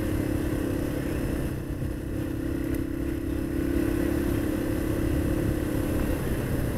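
Yamaha XT225's single-cylinder four-stroke engine running steadily under way on a gravel road, with wind rumble on the microphone. The engine note changes briefly about six seconds in, then settles again.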